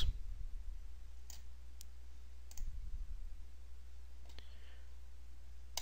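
A few faint computer mouse clicks, spaced irregularly, over a low steady hum.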